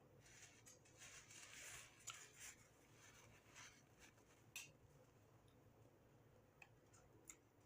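Near silence broken by faint eating sounds at the table: a soft rustle for a second or so near the start, then a few single small clicks.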